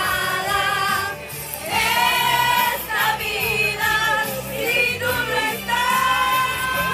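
Music with singing over a repeating bass line.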